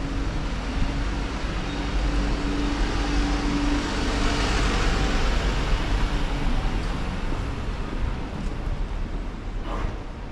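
Street traffic: a vehicle passes with a steady low hum, and its noise swells to a peak about halfway through, then fades.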